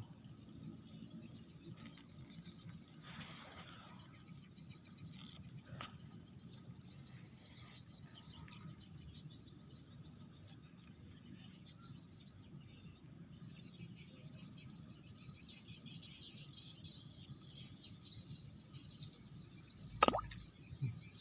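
Field insects chirring steadily in a dense, high-pitched chorus, with a single sharp click about twenty seconds in.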